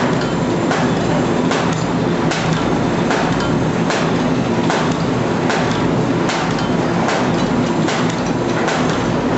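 Automatic paper bag making machine running: a steady mechanical hum with a regular clack a little more than once a second as it cycles.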